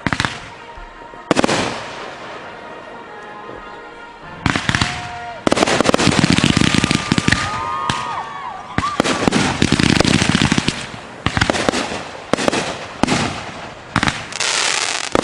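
Aerial fireworks going off in a dense barrage: sharp reports, then long stretches of rapid crackling, with whistling glides rising and falling in the middle.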